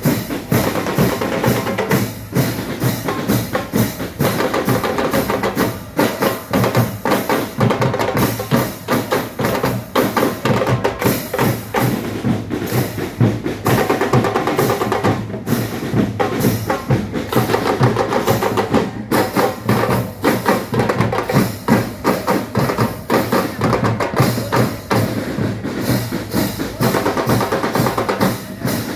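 A band playing a drum-driven piece: drums struck in a steady, busy rhythm, with pitched instruments carrying a melody over them.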